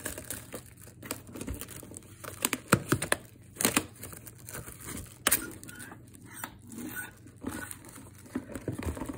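Clear plastic shrink-wrap being peeled and torn off a cardboard card box, crinkling and crackling irregularly, with the sharpest crackles near the middle.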